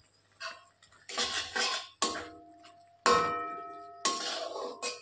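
Metal spatula stirring and scraping thick spice paste in an aluminium kadai, knocking against the pan about once a second so that it rings briefly after each knock.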